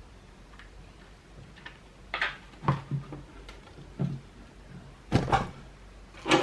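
A string of sharp knocks and clicks from skateboard hardware and tools being handled and set down during assembly, starting about two seconds in and coming every half second or so. The first two seconds hold only faint ticking.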